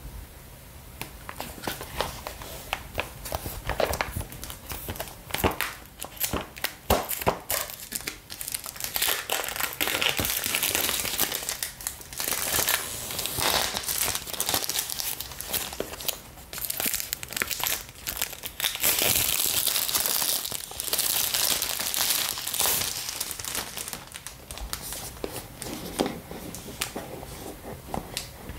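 Clear plastic shrink-wrap being torn and peeled off a cardboard box by hand: scattered crackles at first, then near-continuous crinkling from about a third of the way in.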